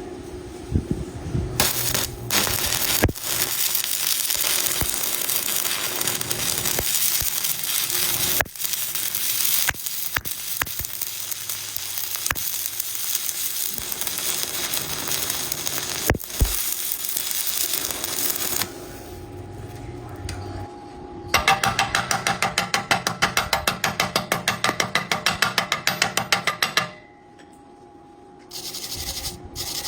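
Stick (shielded metal arc) welding: the arc crackles and sizzles steadily for about seventeen seconds, then stops. A few seconds later comes a run of quick, even scraping strokes, about seven a second, lasting some six seconds.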